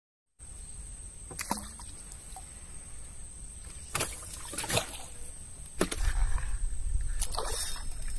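Outdoor sound of a small wooden boat on a river: water lapping with a few sharp knocks and a thin, steady high-pitched tone. A low rumble grows louder about six seconds in.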